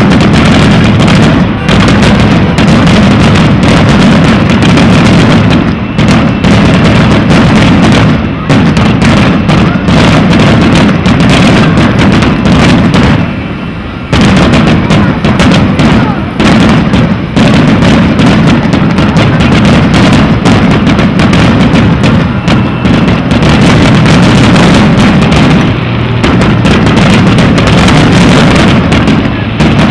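Fireworks finale barrage: aerial shells bursting in rapid, overlapping succession, very loud, with a brief lull about halfway through.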